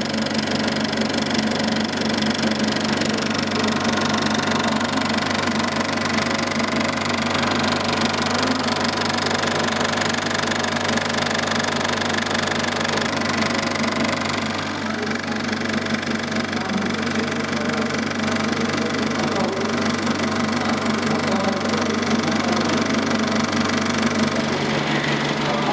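Cinema film projector running: a steady mechanical clatter over a constant motor hum.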